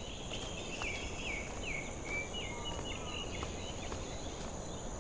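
Birds chirping in short, repeated falling notes over a steady high insect drone.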